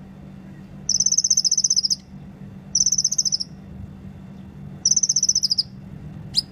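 Sunbird singing: three high, fast pulsing trills, each under a second long, then a short sharp upward chirp near the end.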